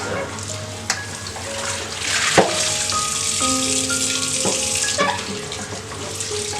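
Water runs from a tap for about three seconds, with a few sharp knocks of things being handled, over soft background music with held notes.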